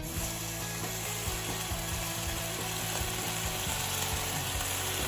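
Butter sizzling and crackling in a hot stainless-steel pan, with many small pops, as cream is poured into it.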